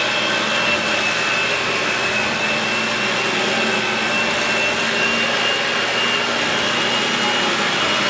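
Upright household vacuum cleaner running steadily, held upside down with its floor head against a ceiling return-air grille to suck out dust. The motor gives a steady high whine over the rush of air.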